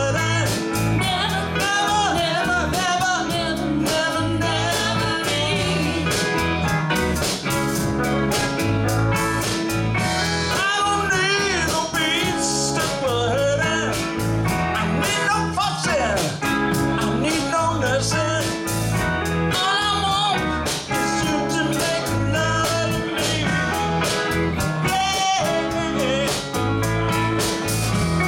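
Live band playing: a woman singing lead over electric guitar, electric bass, keyboard and drums.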